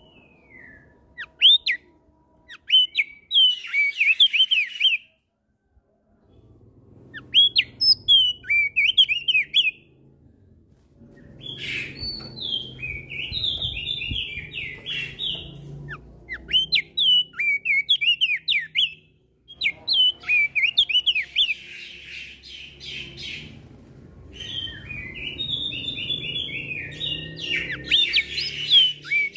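Crested white-eye (opior jambul) and other songbirds singing back and forth in bursts of quick, high chirping phrases separated by short pauses, over a faint low hum.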